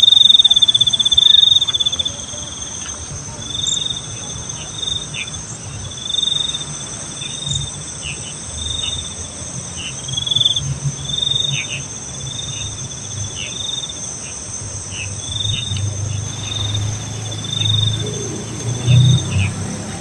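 Crickets chirping: short trilled chirps repeat about once a second over a steady high insect drone.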